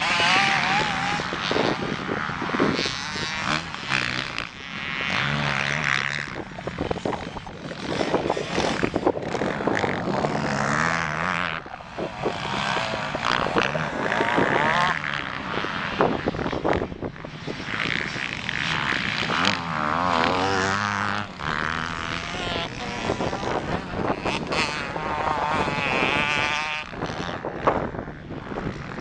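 Motocross dirt bike engines revving on the practice track, their pitch rising and falling over and over with throttle and gear changes.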